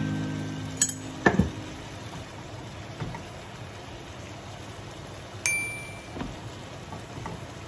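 Chicken pieces sizzling in a frying pan as they are stirred with a wooden spatula, with a couple of sharp clinks about a second in and a single ringing clink about five and a half seconds in. A strummed guitar note fades out at the start.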